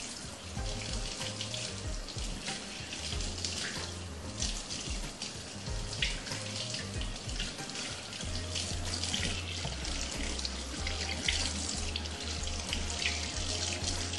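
Kitchen tap running onto a raw fish held in the hands as it is rinsed, the water splashing steadily into the sink.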